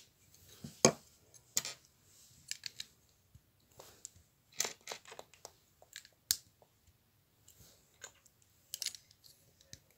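Plastic Lego bricks being handled and fitted together: a scattering of small, sharp clicks and taps at irregular intervals.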